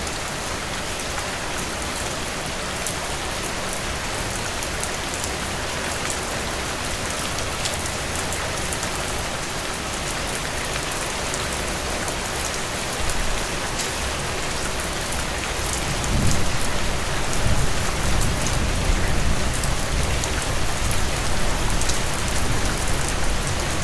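Steady rain falling on a surface, an even hiss with fine droplet ticks. About two-thirds of the way through, a low rumble swells in beneath it and the sound grows louder.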